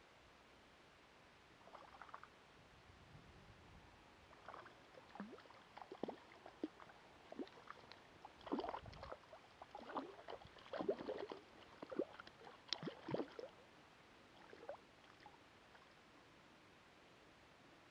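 A hooked grayling splashing and thrashing at the water's surface as it is drawn in to the bank: a run of irregular small splashes, busiest and loudest about halfway through.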